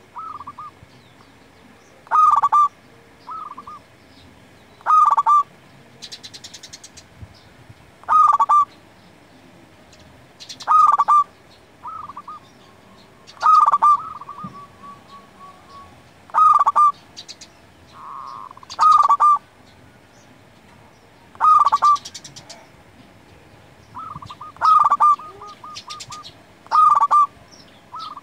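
Zebra dove (perkutut) singing, repeating its clipped cooing call about every two to three seconds, some calls trailing off into a short run of staccato notes. Faint high chirps from small birds can be heard between the calls.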